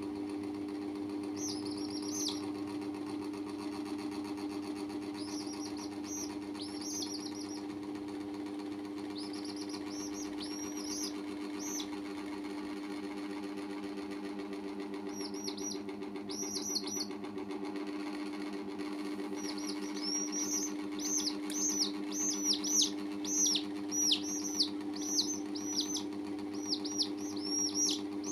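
Young chicks peeping: short, high, downward-sliding peeps in scattered runs, sparse at first and coming thick and fast and louder in the last third. A steady low hum runs underneath.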